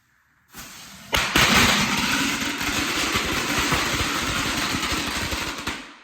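A firework going off with a loud, rough hiss and crackle. It catches suddenly about a second in, runs steadily, then cuts off abruptly near the end.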